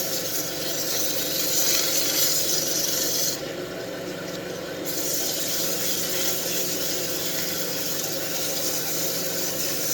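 Wood lathe running with a steady motor hum while something rubs against the spinning wooden wand, making a steady hiss. The hiss eases for a moment about three and a half seconds in, then comes back.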